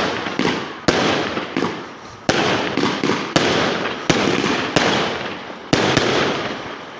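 Pyroworx 'Rapture' firework going off in a string of loud bangs, about one a second with two close together near the end, each bang followed by a fading hiss.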